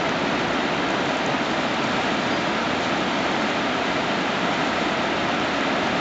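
Iguazu Falls: the steady, unbroken rush of a huge volume of water pouring over the cliffs and crashing into the gorge.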